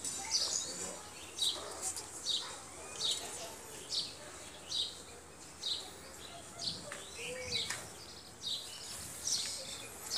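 A small bird chirping repeatedly, one short high chirp about every second.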